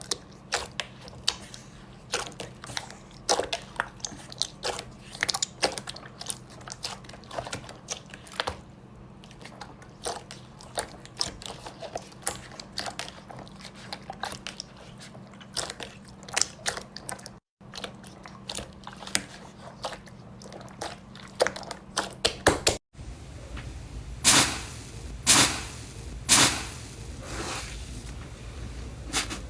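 Slime being squeezed and poked by hand, giving many small crackles and clicks. After a cut near the end, a few louder pops come about a second apart.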